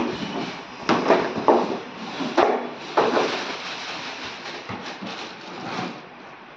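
Parts of a wet grinder being handled and set down: a run of knocks and clunks, about five in the first three seconds, then quieter rustling and tapping.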